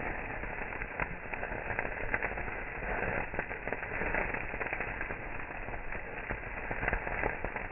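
Beef short ribs grilling over a wood fire, crackling and sizzling steadily with many sharp pops.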